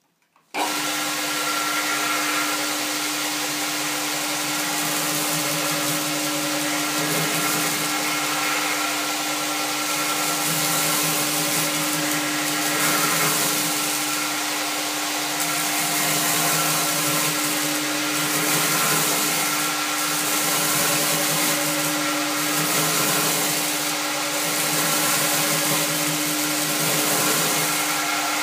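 Homemade belt surface grinder running: the motor and abrasive belt over the contact wheel give a steady hum with one constant tone and a hiss of grinding as the belt works a flat bar on the magnetic chuck. It switches on abruptly about half a second in, and the grinding swells and eases gently every couple of seconds as the table moves under the wheel.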